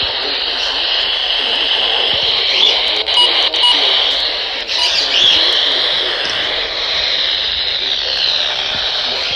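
Weather radio receiver hissing with steady static, with faint traces of a voice under it. Two short beeps come close together about three seconds in.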